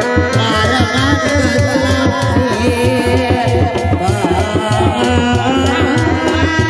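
Live Sundanese reak music: dog-dog drums beating a steady, fast rhythm under a wavering high melody line.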